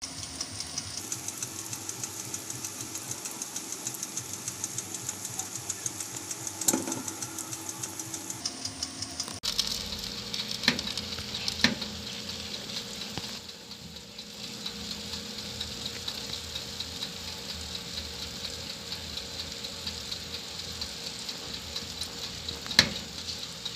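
Marinated chicken sizzling steadily as it grills, with a few sharp clicks along the way.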